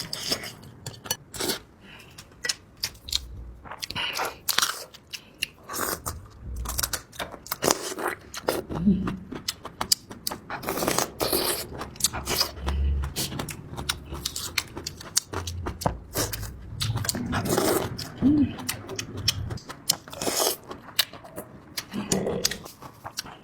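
Close-miked eating of spicy noodles: steady chewing with many short wet mouth clicks and smacks.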